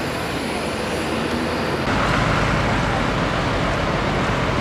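Street traffic noise: a steady wash of passing vehicles, which gets fuller and a little louder about two seconds in.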